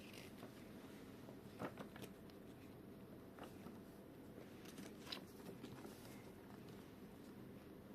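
Near silence with room tone and a few faint, short clicks and crackles of packaging being handled during the unboxing.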